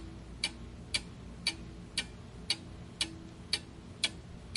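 Ticking clock sound effect, about two even ticks a second, marking the countdown time to answer.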